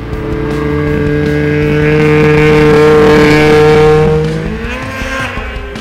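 Snowmobile engine passing close by: a steady engine note that grows louder, then drops in pitch and fades about four and a half seconds in as the machine goes past.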